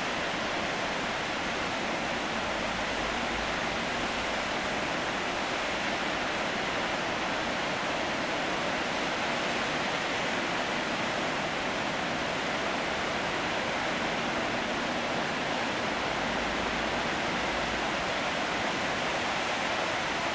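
Marmore Falls, a tall tiered waterfall, pouring down just after its water has been released for the opening: a steady, even rushing of falling water with no breaks.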